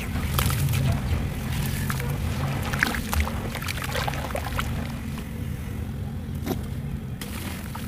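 Soft, dusty lumps being crushed and swished by hand in a tub of water, with small splashes and crumbling crackles, over a steady low hum.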